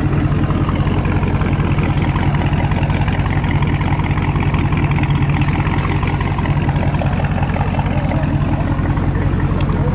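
Car engine idling steadily, its sound sitting mostly low and even throughout.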